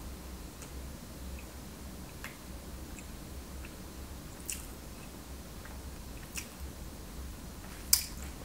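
A person chewing a mouthful of donut with the mouth closed: soft, sparse mouth clicks over a low steady hum. A sharper click near the end is the loudest sound.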